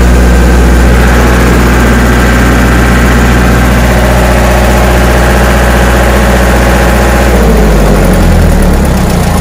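The diesel engine of a Miller Big Blue 600X engine-driven welder running steadily, then shut off about seven seconds in, its note falling as it runs down to a stop.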